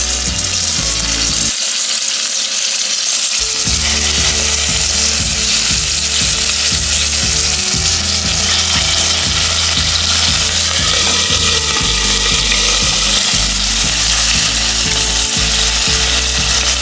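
Boiled pork rib pieces sizzling in hot oil in a stainless steel pot, frying to brown, as more pieces are added.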